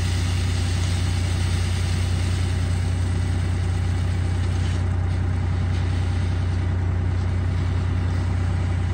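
Vaibhav Agro Industries semiautomatic thresher running with a steady low hum, while threshed crop pours from its tipped hopper into a trailer.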